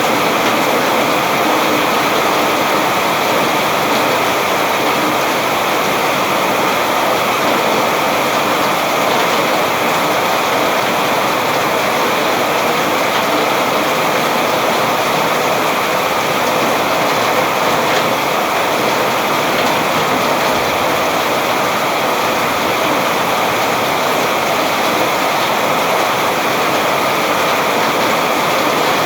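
Heavy rain falling steadily, a dense even hiss of drops without pause or change.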